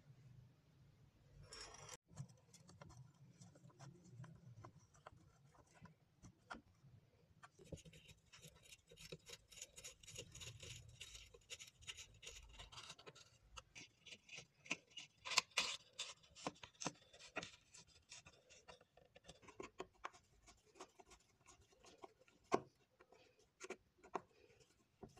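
Flat-blade screwdriver turning screws into a wooden rifle stock: faint, irregular scraping and clicking of the blade in the screw slots as they tighten, with a few louder clicks about halfway through.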